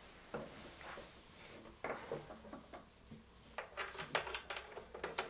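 Light handling clicks and taps at a bench DC power supply as its test leads are connected and its controls set, with a quicker run of clicks in the last second or two.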